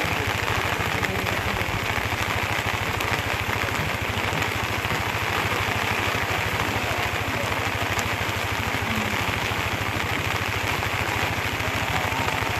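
A small engine running steadily at idle, with a fast, even low pulse and no change in speed.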